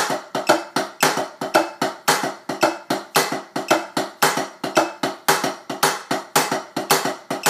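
Sticks playing a fast marching-drumline cadence on a rubber-topped tenor (quad) practice pad: a steady stream of quick, dry strokes with louder accents.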